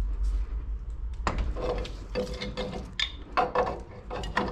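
Irregular knocks and clicks of metal parts being worked on a pipe valve and its couplings, some followed by a short metallic ring.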